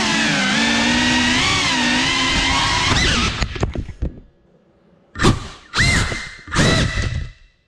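GEPRC Cinelog 35 cinewhoop's four brushless motors and ducted props whining at a steady cruising pitch, recorded on the drone's GoPro. About three seconds in the throttle drops and the whine falls to near silence, then comes three short, sharp throttle punches with quickly rising pitch, and it cuts off again near the end.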